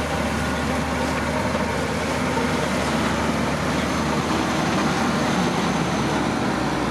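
Heavy road-building machinery's diesel engine running steadily.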